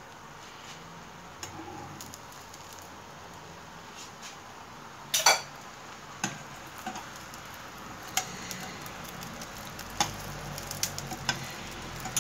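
Beaten egg with a slice of bread frying in oil in a frying pan: a faint, steady sizzle with scattered sharp clicks and pops, the loudest about five seconds in.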